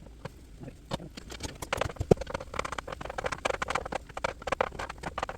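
A meat chopper tapping and scraping through ground pork in a pan: quick, uneven clacks that grow busier after about two seconds, with one louder clank about two seconds in.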